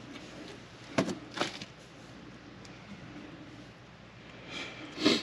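Two sharp knocks about a second in, then a scraping swell that ends in a louder knock near the end: a pry tool being worked and repositioned between the brake caliper and pad to press the caliper piston back.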